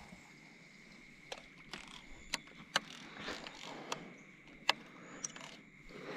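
Faint sharp clicks and knocks of gear being handled on a plastic fishing kayak, scattered every second or so, over quiet lake ambience with a faint steady high-pitched tone.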